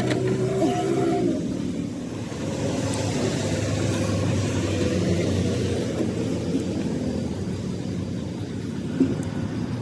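Steady low mechanical rumble, with a short click near the end.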